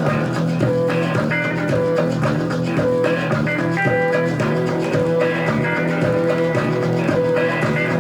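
Instrumental stretch of a pop-rock recording with guitar and full band backing, a short note repeating at an even pace, without singing.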